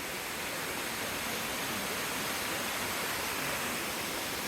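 Amicalola Falls, a tall mountain cascade, giving a steady, even rush of falling water.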